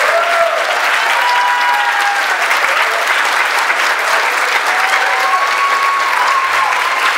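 Audience applauding, a dense steady clapping, with a few drawn-out cheers over it.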